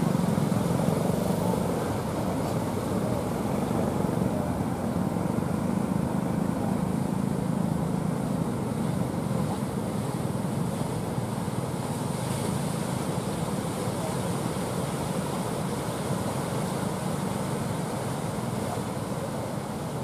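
Steady rumble of breaking surf mixed with the low drone of wooden fishing boats' engines as they come in through the waves.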